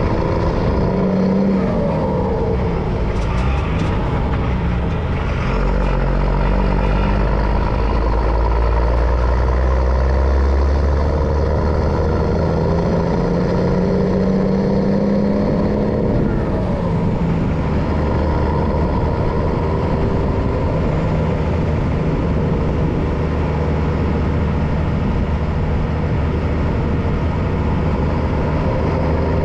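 MAN LE280B 4x4 truck's diesel engine running while driving, its note climbing through the middle and dropping back a little past halfway.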